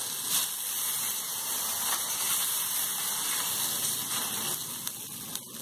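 Water and oil sizzling and hissing on a hot iron tawa as water is spread by hand over the top of a thalipeeth flatbread. The hiss eases a little near the end.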